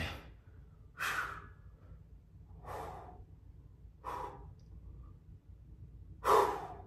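A man breathing hard while doing push-ups: four heavy breaths out, about one every second and a half, the last one near the end the loudest.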